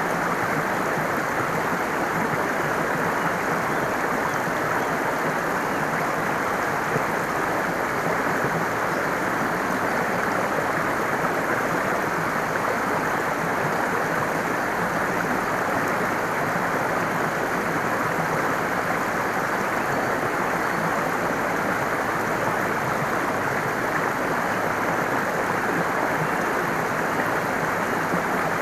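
Running water rushing steadily and evenly, a continuous stream-like wash with no single splashes or breaks.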